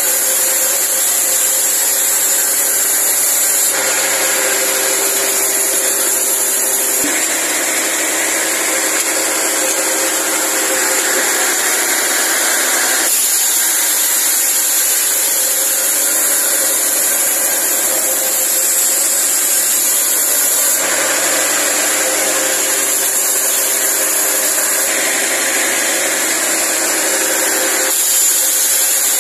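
Vertical band saw on a log carriage, driven by a Fuso truck engine, running steadily as it saws a teak log. Its sound shifts in character every few seconds.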